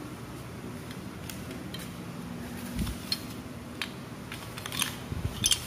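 Large plastic toy building blocks clicking and knocking against each other as a hand picks through and sorts them, in scattered, irregular clacks with a couple of louder knocks.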